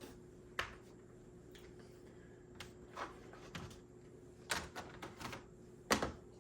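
Scattered light plastic clicks and knocks as a small HO-scale slot car is handled and set on its track, with a few louder knocks about three quarters of the way through, over a faint steady hum.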